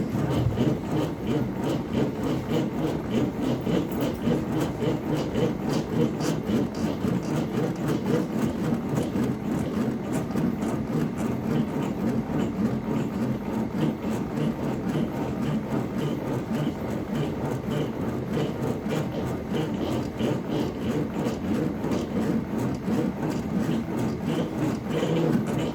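A power tool working wood: a steady, dense rasping grind with no letup.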